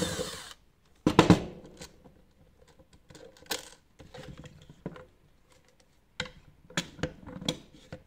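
Cordless drill-driver running briefly to back out the small fixing screw on a uPVC flag hinge. About a second in comes a loud clunk, then scattered small clicks and taps as the plastic hinge parts are handled.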